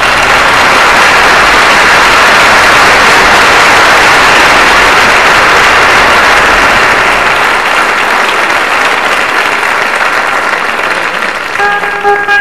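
Audience applauding, starting abruptly and easing off slightly toward the end. Near the end a guitar begins playing plucked notes over the clapping.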